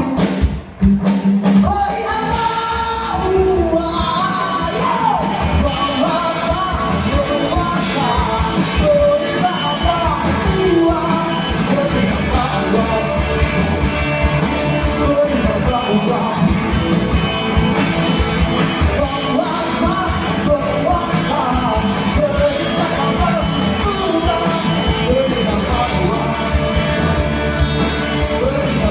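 Rock band music playing, with drums and pitched lead lines, in an instrumental stretch between sung verses.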